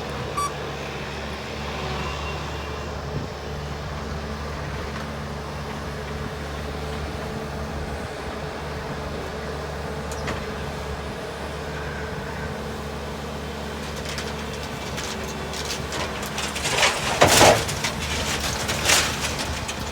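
Skid loader engine running steadily, its reversing beeper sounding briefly at the start. Near the end, several loud crunching, banging crashes as the lean-to is torn down.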